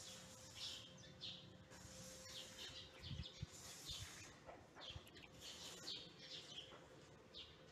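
Faint, repeated bird chirps, with a few soft low thumps about three to four seconds in.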